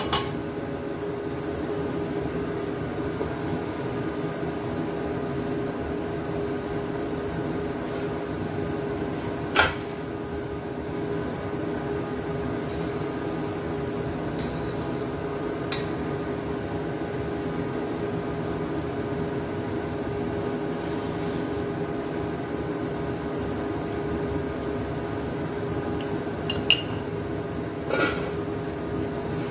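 Metal cookware clinking a handful of times: a spoon set down, a glass lid put on a steel wok, a stock-pot lid handled, each a short sharp clink. Under them, a steady mechanical hum from a kitchen appliance or fan.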